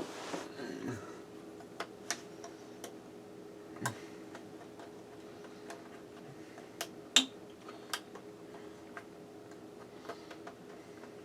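Irregular light clicks and taps of tools and parts being handled inside an opened vintage Macintosh computer, a sharper click about seven seconds in, over a faint steady hum.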